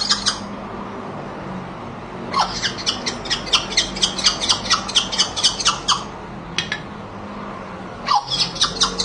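Pet parrot making a mimicked sound: a short falling whistle, then a rapid run of sharp high clicks at about five or six a second for a few seconds. It starts about two and a half seconds in and again near the end.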